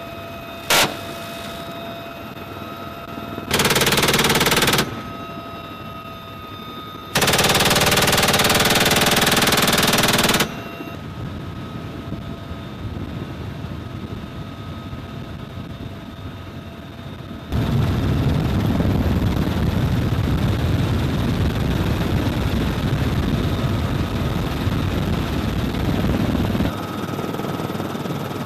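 Helicopter door gun firing bursts: a very brief one, then one of about a second, then one of about three seconds. The UH-1Y Venom helicopter's turbine whine and rotor noise run steadily between them. Later a louder low rumble of the helicopter takes over for about nine seconds.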